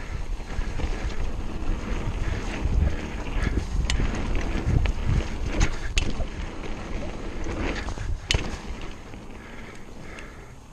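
Mountain bike riding fast down a dirt trail: wind buffeting the microphone and tyres rumbling over the ground, with a few sharp clacks from the bike over bumps. It gets quieter near the end.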